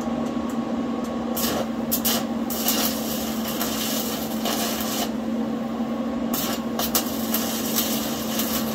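Electric arc welding on steel plate: the arc crackles and sizzles in two runs, the first starting about a second and a half in and stopping around five seconds, the second starting about six seconds in and still going at the end. A steady hum runs underneath.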